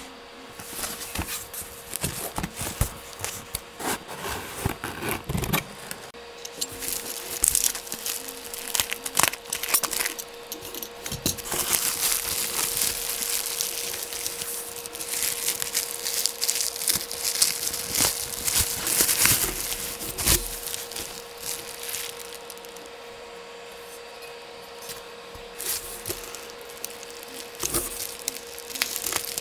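Unpacking by hand: cardboard and packing foam rubbing and knocking, with plastic bubble wrap crinkling and rustling in irregular bursts.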